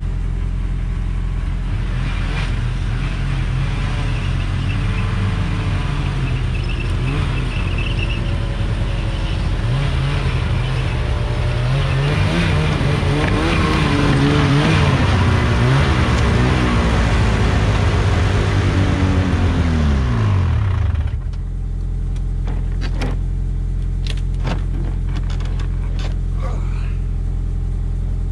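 Ski-Doo MX Z Rev 800 snowmobile's two-stroke twin revving up and down as it is ridden up loading ramps, then switched off with its pitch falling away about seven seconds before the end. A second engine keeps idling steadily underneath throughout, with a few clicks and knocks near the end.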